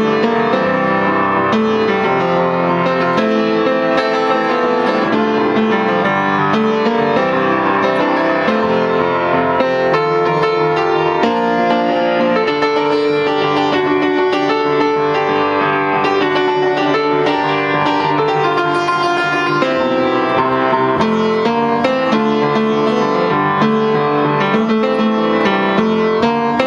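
Piano playing: a continuous piece of many notes and chords.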